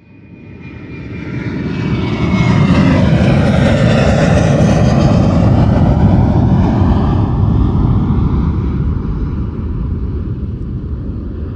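Airplane engine sound effect, starting from silence and building to full volume over about two seconds, then slowly fading. Whining tones glide down in pitch as it passes.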